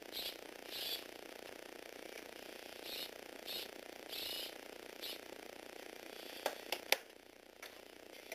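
Small toy gearbox motors and plastic gears of a Lego Technic robot arm vehicle whirring in about half a dozen short high bursts over a steady hum. About six and a half seconds in come three sharp clicks, and the hum drops away just after them.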